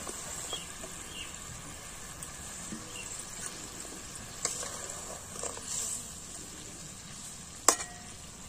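Spiced gravy bubbling and sizzling in an aluminium kadai as stuffed pointed gourds are laid into it, with a few soft knocks. Near the end there is a sharp metal clack as the spatula strikes the pan.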